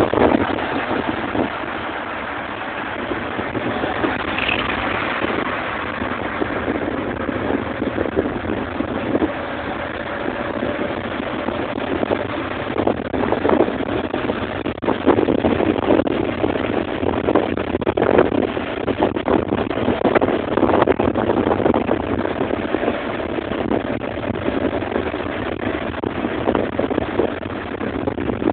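Road traffic noise heard from a moving vehicle on a busy city road: engines running and tyres on the road, with a faint steady hum through most of it.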